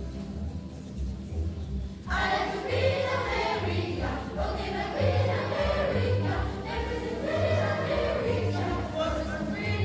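A school choir of young voices singing, coming in strongly about two seconds in after a short stretch of low bass notes alone, which carry on underneath the singing.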